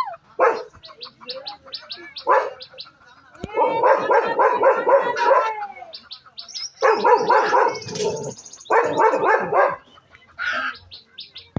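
A German shepherd barking in fast volleys, three long runs of quick barks with a few single barks between them. A small bird chirps rapidly and steadily in the background.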